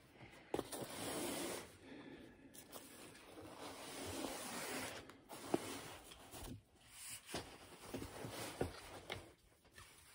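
Rifle and gear being handled at a shooting bench: rustling and scraping, with a few sharp clicks, the loudest about half a second in and about five and a half seconds in.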